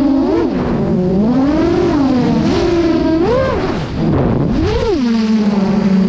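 An 8-inch FPV freestyle quadcopter's Hyperlite-E 2807.5 motors spinning MasterAirscrew MR8x4.5 two-blade propellers make a loud hum whose pitch swoops up and down with the throttle. Just before four seconds in the sound dips, then rises sharply again. It settles into a steady lower hum near the end.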